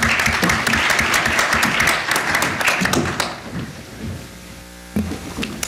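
Audience applauding, fading out about three seconds in. A faint steady hum follows, then a sudden thump near the end.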